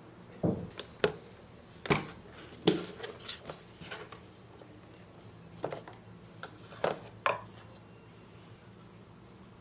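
Kitchen utensils and dishes knocking and clacking, about ten sharp irregular clacks over several seconds, then a pause.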